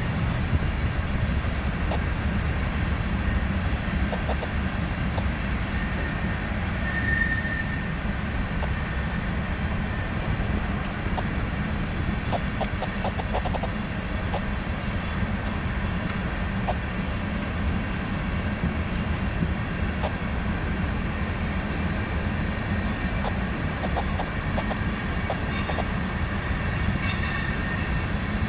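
Freight train of covered hopper cars rolling past steadily, its wheels rumbling on the rails with scattered clicks over the rail joints and a brief faint squeal about seven seconds in.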